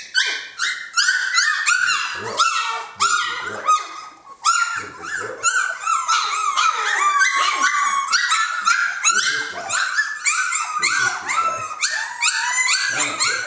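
Three-week-old Jamthund (Swedish Elkhound) puppies whining and yelping all at once, many short rising and falling cries overlapping without a break, as the litter crowds the mother to nurse.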